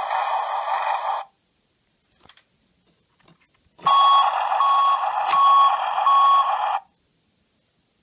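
Tonka toy bulldozer's electronic sound effects through its small built-in speaker. A harsh noise cuts off about a second in. A few faint button clicks follow. Then the noise starts again for about three seconds, with four evenly spaced beeps like a reversing alarm.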